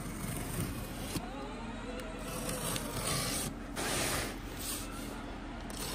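Utility knife slitting packing tape along a cardboard box seam, then cardboard scraping and rustling as the box is handled and opened, with the louder rasps about two and three and a half seconds in.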